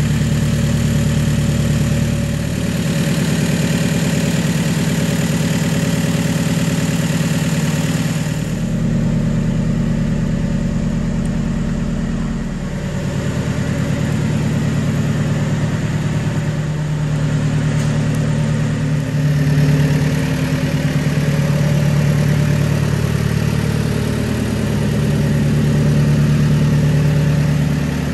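Volkswagen T4 Transporter pickup's engine idling steadily, its low hum changing a little in tone every few seconds.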